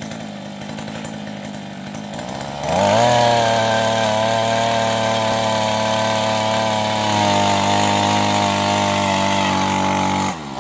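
Handheld earth auger's small two-stroke petrol engine idling, then revved hard to full throttle about three seconds in. It holds a steady high note while the auger bores into the soil. Near the end the revs drop off for a moment and pick up again.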